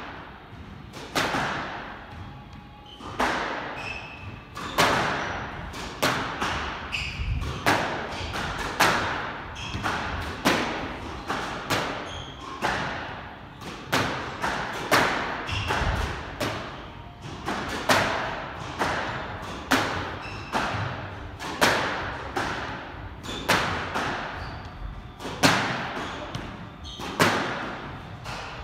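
Squash ball rally: racket strikes and the ball smacking the front wall, about one sharp hit a second, each ringing briefly around the court.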